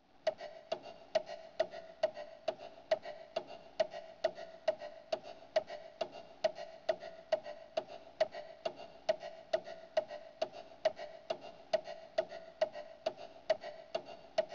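Clock ticking: an even tick-tock of about two sharp ticks a second, each with a short pitched ring.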